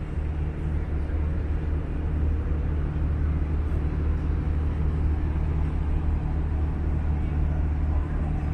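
Passenger ferry's engines running, a steady low drone that holds even throughout.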